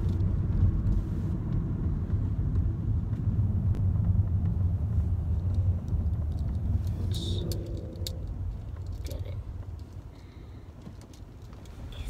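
Low road rumble inside a moving car's cabin, easing off in the last few seconds.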